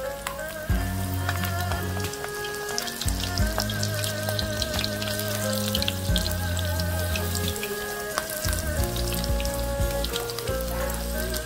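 Background music with held, wavering melody notes over a changing bass line, laid over the fine crackle and sizzle of tempura shrimp deep-frying in hot oil.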